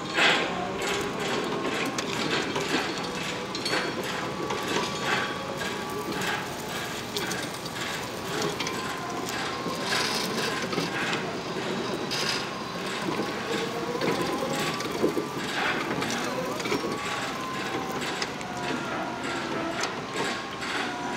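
Raymond narrow-aisle reach truck being driven: its battery-electric drive whines, the pitch rising and falling, over a steady run of clicks and rattles.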